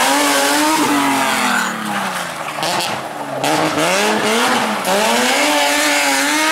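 BMW E36 rally car's engine revving hard through a tight hairpin. The revs drop about two seconds in, climb sharply, dip briefly near five seconds, then climb again.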